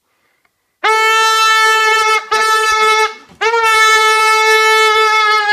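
Red rubber balloon squealing as air is let out through its stretched neck: three loud, steady, horn-like notes at one pitch, the first starting about a second in, the second short and the last long.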